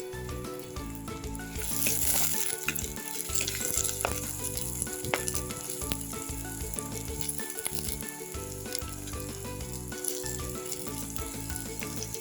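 Food frying in hot oil, a steady sizzle that swells about two seconds in and stops abruptly at the end.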